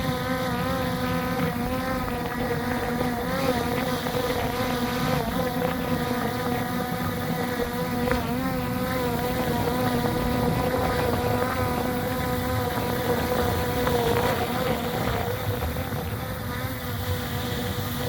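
DJI Mini 4 drone's propellers, a steady multi-toned whine that wavers slightly in pitch as the drone holds its hover in gusty wind, with wind noise on the microphone.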